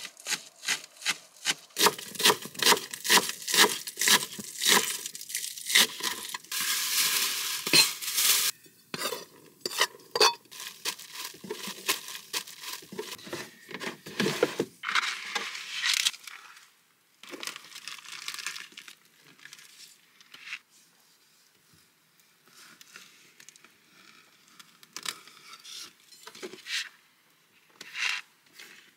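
Cooking prep at a small counter: a quick run of regular knife knocks on a cutting board, then clatter and rustle of pans, utensils and wrappings with a short steady hiss, growing sparser and quieter in the second half.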